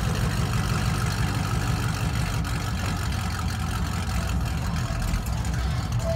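Fifth-generation Chevrolet Camaro idling at the kerb, a steady deep exhaust rumble from its tailpipes.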